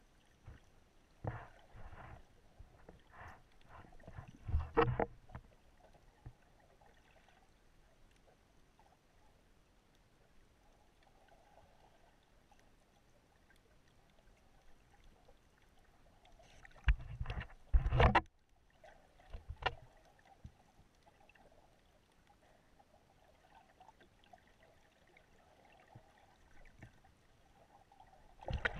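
Underwater sound through a waterproof camera housing: a faint, steady water hiss broken by three clusters of short knocks and water movement, early, a little past the middle and at the end. The middle cluster is the loudest.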